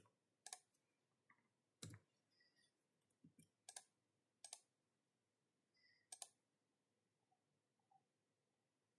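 Computer mouse clicking: about six short, sharp clicks spread over several seconds, two in quick succession near the end, with near silence between them.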